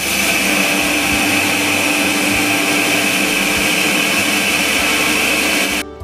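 Brunner M8 industrial coffee grinder running: a loud, steady machine noise with a constant high-pitched tone in it, cutting off suddenly near the end.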